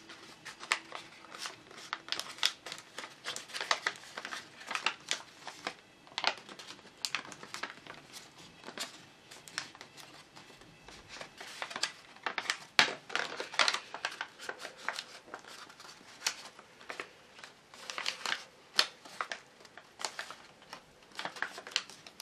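Folded sheet of letter-size paper crinkling and crackling in many short, irregular bursts as fingers squeeze, crease and push it into shape.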